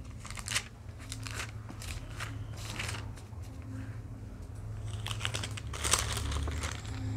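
Thin Bible pages being leafed through by hand: a run of short papery rustles and flicks, the loudest about six seconds in, over a low steady hum.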